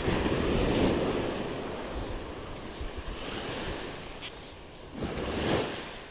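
Surf breaking and washing up a sandy beach, swelling once at the start and again about five seconds in, with wind on the microphone.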